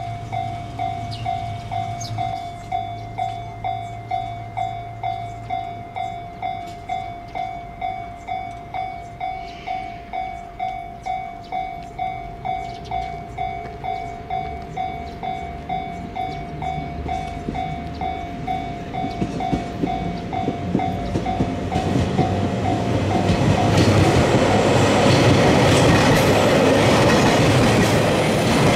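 A level-crossing warning bell dings steadily about twice a second. From about two-thirds of the way in, the rumble and wheel clatter of an approaching train, KiHa 201 series diesel cars coupled with 731 series electric cars, swells until the train is running close by and drowns out the bell.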